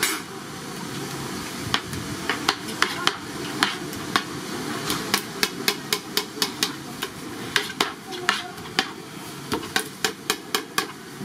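Sharp knocks and clicks of kitchen utensils at a handmade fish-cake stall, irregular at first and coming about two to three a second in the second half, over a steady hiss.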